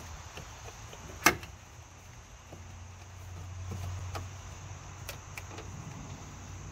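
Plastic bumper tow-hook cover on a Ford F-250 Super Duty being pried and worked by hand against its retaining clips: one sharp plastic click about a second in, then a few faint clicks. A low steady hum runs underneath.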